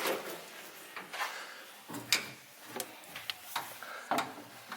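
Scattered knocks and clicks of someone climbing into the cab of a Mercedes-Benz MB-trac 1600 Turbo tractor: the cab door, handholds and steps, with the sharpest knock about two seconds in.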